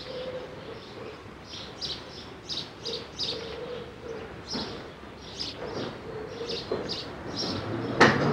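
Small birds chirping over and over, with a pigeon cooing now and then underneath. A single sharp knock comes near the end.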